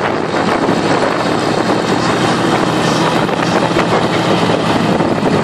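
Radial engine of a single-engine WWII propeller fighter running steadily at taxi power as the plane rolls past along the taxiway.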